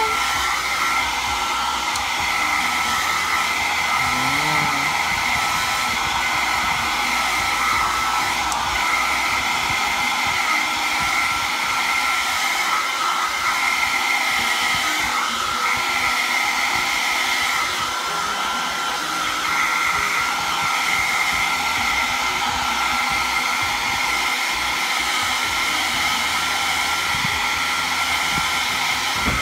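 Handheld electric hair dryer running steadily, blowing air over a towel-wrapped kitten: a constant rushing hiss with a steady high whine.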